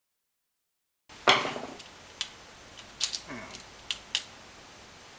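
Clicks and clacks of a plastic-and-metal L14-30 twist-lock plug being taken apart by hand. After about a second of silence, a sharp click with a short ring comes first and is the loudest, then several lighter ticks as the parts are worked loose.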